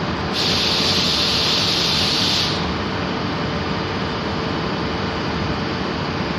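Freight train behind an E.652 electric locomotive rolling through a station, with a steady rush and rumble of wheels on rails. A loud hiss joins in just after the start and lasts about two seconds.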